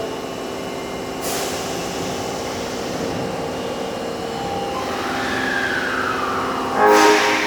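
Osaka Metro Tanimachi Line subway train standing at a platform: a hiss of compressed air sets in about a second in, and a falling whine follows later. Near the end comes a short, loud burst of air hiss with a brief tone.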